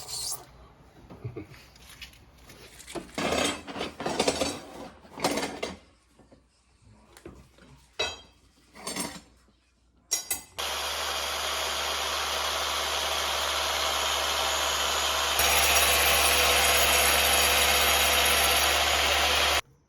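Short scraping and handling noises, then a power tool runs steadily from about halfway through. It gets louder a few seconds before the end and stops suddenly.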